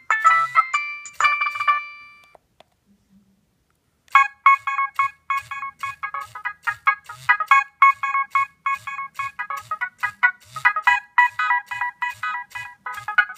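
Nokia 3595 mobile phone playing ringtones through its small speaker. One tune ends about two seconds in, and after a short silence another starts at about four seconds, with quick repeated notes, about three or four a second.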